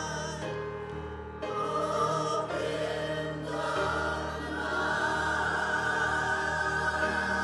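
Mixed church choir singing a song about hope over a steady accompaniment, with a short lull about a second in; from about five seconds in the voices hold one long note.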